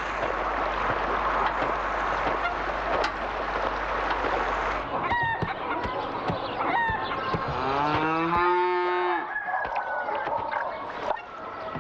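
A steady rushing noise that cuts off about five seconds in, giving way to farmyard chickens: two short calls, then a rooster crowing once about eight seconds in, and more short calls near the end.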